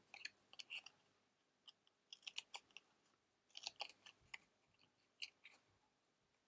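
Faint snips of small scissors cutting through thin card, coming in several short runs of quick cuts with pauses between them.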